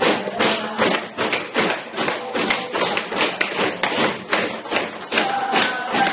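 Youth football team's war cry: a fast, even beat of thumps, about four a second, under shouting voices, with a held high shout near the end.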